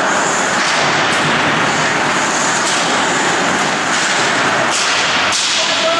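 Loud, steady din of an ice hockey game in an indoor rink, with two sharp knocks nearly five seconds in as play reaches the boards.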